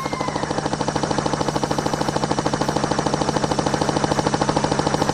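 Toy helicopter running with its rotor spinning: a steady motor hum with a fast, even clicking of about ten clicks a second.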